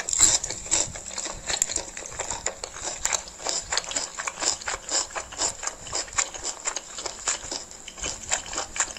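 Close-miked eating of instant noodles: wet slurping of strands into the mouth and open-mouthed chewing, a rapid, irregular run of sticky mouth clicks and smacks.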